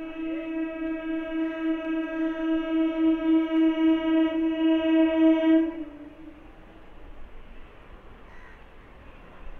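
An EMU local train's horn blows one long note with a wavering pulse, growing louder before it cuts off about six seconds in. After that comes the faint, steady running noise of the approaching train.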